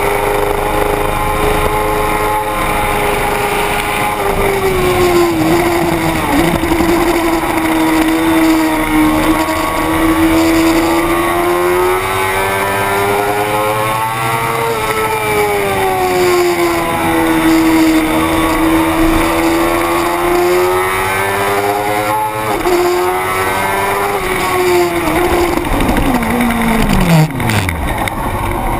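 600 cc racing motorcycle engine running hard at high revs, its pitch swelling and dipping slowly with the throttle, then falling steeply near the end as the revs drop away.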